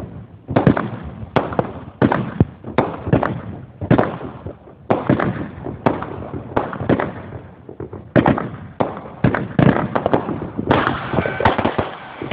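Fireworks going off: a dense, irregular run of sharp bangs, one or two a second, each with an echoing tail. They thicken into continuous crackling near the end.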